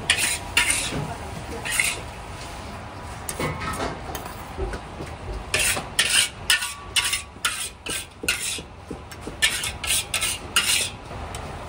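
Short scraping strokes of a kitchen utensil on cookware, a few near the start and then a quick run of about a dozen in the second half.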